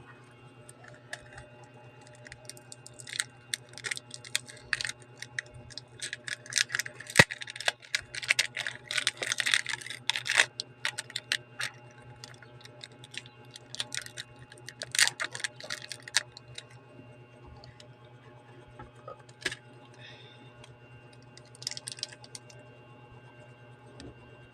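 Irregular small clicks, taps and scrapes of hand tools working on a smartphone during a screen repair, dense for several seconds and then sparse, over a steady low hum.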